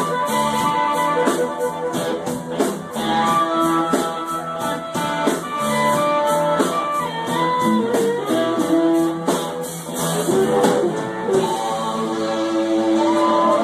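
Instrumental blues-rock from a band: electric guitar lines with bent notes over drums keeping a steady beat on the cymbals. The steady cymbal beat stops near the end, leaving the guitar ringing over a wash of sound.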